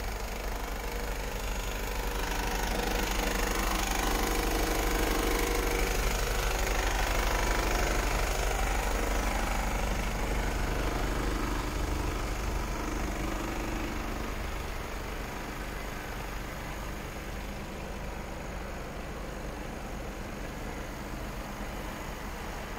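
Mercedes-Benz Actros 1843 truck's inline-six diesel idling steadily, louder between about two and ten seconds in.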